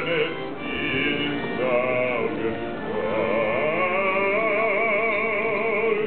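A man singing solo with a wide vibrato, accompanied by a button accordion; a long held phrase begins about halfway through.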